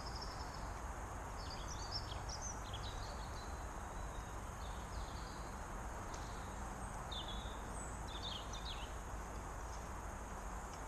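Steady noise of distant motorway traffic, with small birds chirping in short, high phrases over it, in clusters about two seconds in and again around seven to nine seconds in.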